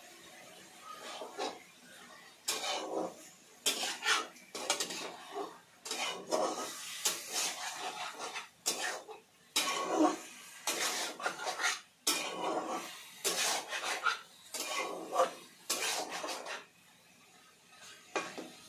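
A utensil stirring and scraping chicken around a kadhai: irregular clattering strokes, some quick, some drawn out, that stop a couple of seconds before the end.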